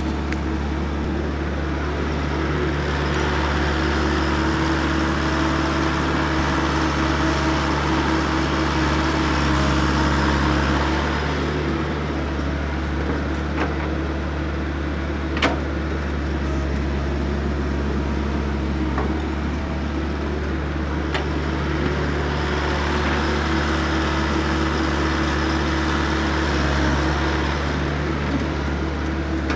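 Komatsu PC120 hydraulic excavator's diesel engine running steadily while the machine digs. The engine and hydraulics swell louder for stretches a few seconds in and again about two-thirds through. There is one sharp knock about halfway.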